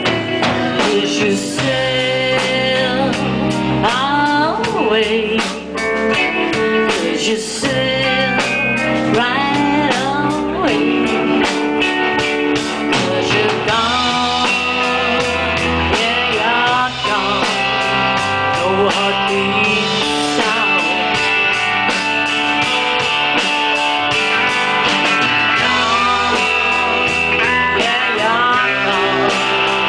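A live blues-rock band plays an instrumental passage: a lead guitar bends and slides its notes over drums and bass guitar.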